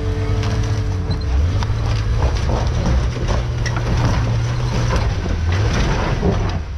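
An off-road 4x4 truck's engine running steadily on a rock trail, its pitch dropping about five and a half seconds in.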